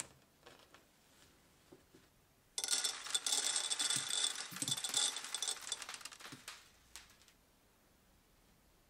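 A handful of small steel upholstery tacks poured onto a wooden workbench, rattling and scattering for about four seconds; it starts suddenly between a few faint handling clicks.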